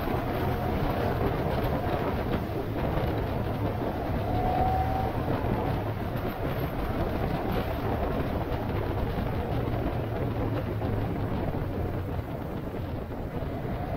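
A vehicle engine running steadily while under way, with road and wind noise.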